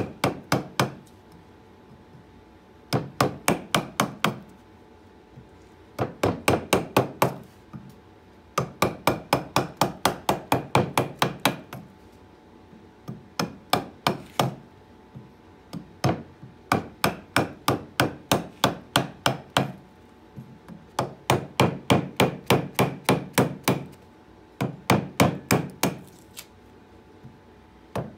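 A carving gouge struck with rapid, even mallet taps, about five a second, as it cuts into a birch log to hollow out a bowl. The taps come in seven runs of one to four seconds, with short pauses between them.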